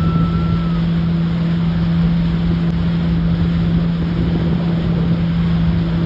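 Motorboat engine running steadily at speed while towing an inflatable ride, with a low, even hum under the rush of water spray and wind buffeting the microphone.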